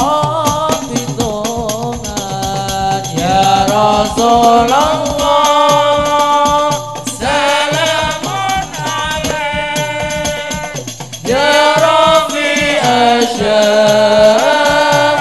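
Hadroh ensemble performing sholawat: voices singing a devotional melody through microphones over a fast, steady rhythm of hand-struck rebana frame drums. The singing grows louder about eleven seconds in.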